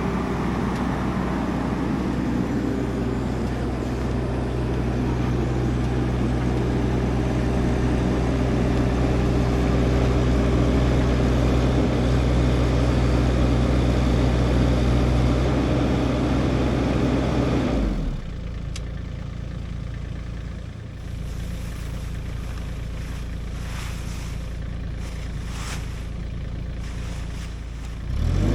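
An engine running steadily at high speed, dropping suddenly to a low idle about eighteen seconds in, then speeding up again near the end.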